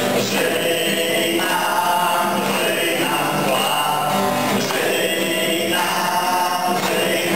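A small mixed group of women and men singing a song together in unison, with hands clapping along.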